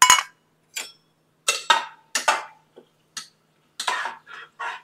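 Metal spatula scraping and clinking against the inside of an aluminium pressure cooker while stirring whole spices in hot oil: a string of about ten short, irregular scrapes and knocks, the sharpest right at the start.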